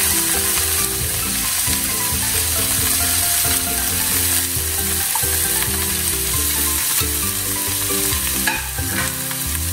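Chopped vegetables and spinach sizzling in hot ghee in a ceramic frying pan as more are dropped in by hand, with a few scrapes near the end.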